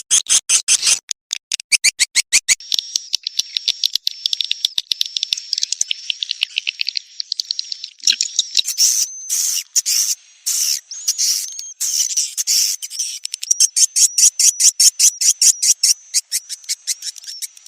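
Recorded swiftlet calls: fast, high-pitched trains of chirps and clicks over a thin steady twitter. This is a swiftlet-house lure track meant to call young swiftlets in.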